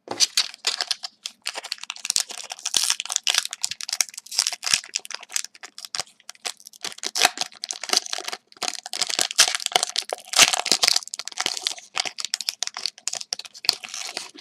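Crinkling and tearing of a sealed hockey card pack wrapper being torn open and pulled apart by hand: dense, irregular crackles with short pauses.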